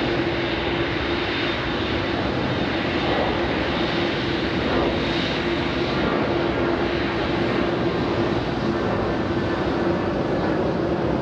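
Boeing 747 jumbo jet's four jet engines running steadily at low taxi power as the aircraft rolls slowly past: an even roar with a steady hum and a faint high whine.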